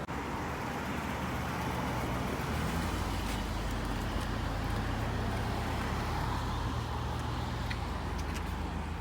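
Street traffic: a motor vehicle's engine running close by, its low hum swelling through the middle and easing off near the end.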